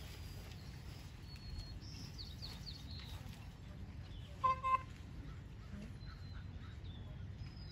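Wild birds chirping in quick falling runs over a steady low outdoor rumble. About halfway through come two short, loud pitched calls close together.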